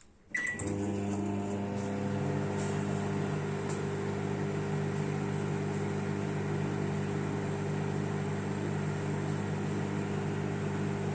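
Microwave oven starting on 900-watt microwave mode: a short beep about a third of a second in, then a steady low hum with fan noise as it heats.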